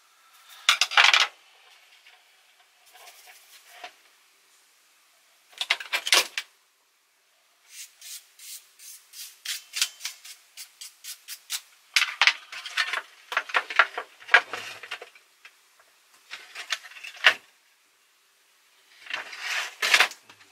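A toothbrush scrubbing over the plastic cassette mechanism of a Philips N2234 cassette recorder, brushing out dust, in bursts of scratchy strokes with a quick run of about four strokes a second in the middle.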